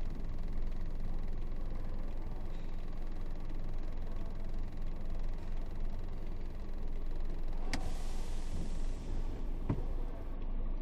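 Isuzu 8x4 heavy truck's diesel engine running steadily at a low rumble. About eight seconds in there is a sharp click followed by a fading hiss, and another click comes near the end.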